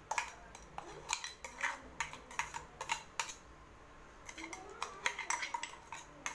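Stainless-steel mixer-grinder jar being handled and wiped: a run of light, irregular clicks, taps and rubbing against the metal.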